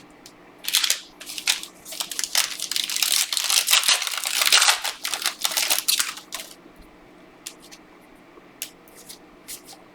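Plastic wrapper of a trading-card pack crinkling and tearing as the pack is opened, for about six seconds, then a few light clicks of the cards being handled.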